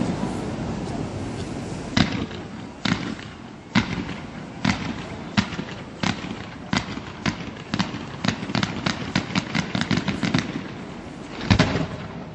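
Aerial fireworks display: a run of sharp bangs, about one a second at first, quickening to about three a second, then two loud bangs close together near the end.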